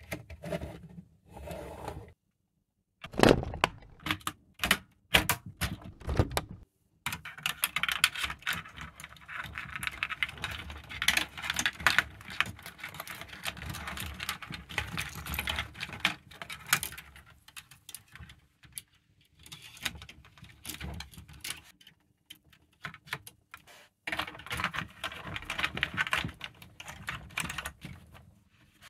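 LEGO Technic plastic parts handled and pressed together by hand: a run of sharp clicks a few seconds in, then longer spells of clattering and rustling.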